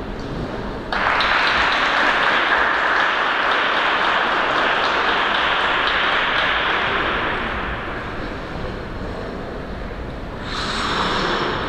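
Applause from a small crowd, starting suddenly about a second in and dying down over several seconds, then a brief second swell near the end.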